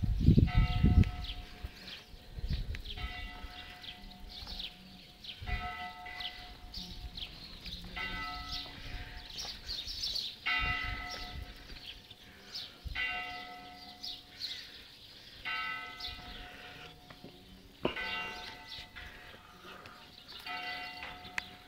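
A bell tolling slowly, about nine strokes each two and a half seconds apart, each stroke ringing on and fading before the next. A low rumble on the microphone sounds briefly at the start, and short high chirps come in between the strokes.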